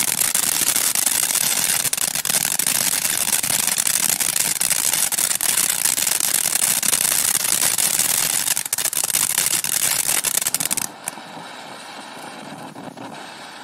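Crackling consumer firework: a dense, loud crackle of many rapid small pops for about eleven seconds that stops suddenly, leaving the fainter hiss of a small fountain.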